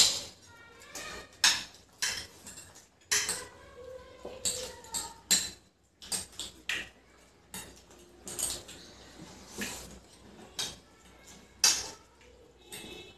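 Metal forks and spoons clinking and scraping against ceramic plates in an irregular run of sharp clicks, mixed with the mouth sounds of eating noodles. A sharp clink right at the start is the loudest.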